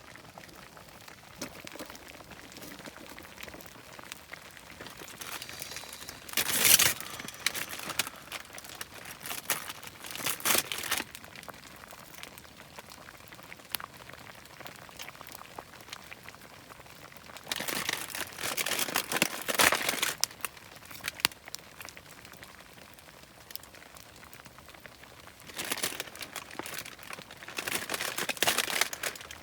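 Crinkly wrapping being handled, in four bursts of crinkling and crumpling; the longest comes about two-thirds of the way through.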